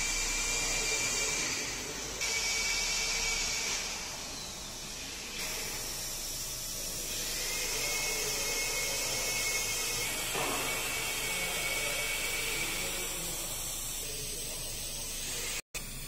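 Spindle of an FW-1325 CNC router running at high speed while its bit engraves a board: a steady high whine with cutting hiss. The level jumps abruptly a few times, with a brief break near the end.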